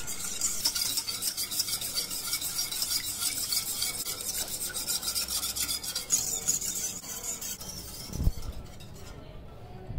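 Wire whisk beating coconut milk, corn flour and sugar in a saucepan to dissolve the flour and sugar: a fast, continuous swishing and scraping of the wires against the pan, easing off near the end. A low thump about eight seconds in.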